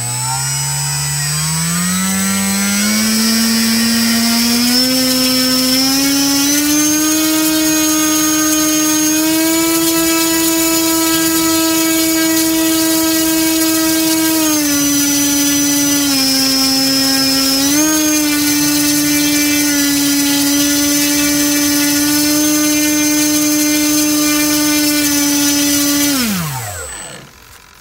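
HeadsUpRC Leopard 960kv brushless motor spinning a 12x6 propeller on a four-cell LiPo. It spools up smoothly from rest to a high steady whir, sags briefly about halfway and comes back, then winds down quickly near the end after being pushed to about 630 watts. A thin high whine runs steadily above the prop hum.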